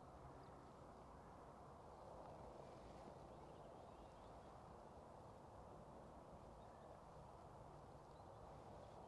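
Near silence: faint outdoor background, with a few faint distant bird calls about two to three seconds in.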